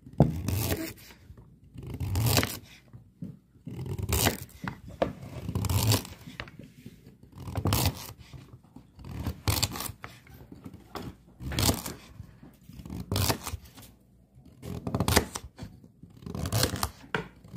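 Kitchen knife slicing peeled carrots into thick rounds on a wooden cutting board: a crunchy cut ending in a knock on the board, about once every two seconds.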